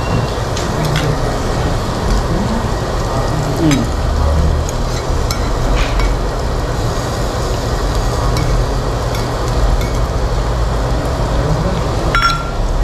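Meat sizzling on a tabletop Korean barbecue grill: a steady frying hiss, with a few sharp clicks of metal cutlery.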